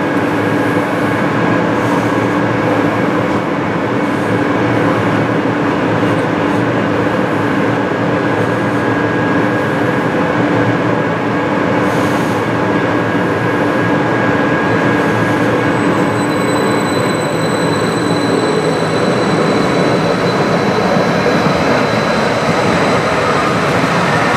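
Calgary C-Train light-rail train standing at the platform with a steady electrical hum. About two-thirds of the way through it starts pulling away, and a high whine joins the running noise.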